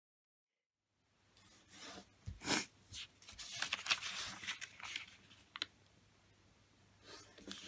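Origami paper rustling as it is unfolded, opened out and folded in half again, with a few sharp crinkles as the fold is pressed flat; it starts about a second in, and a short rustle comes again near the end.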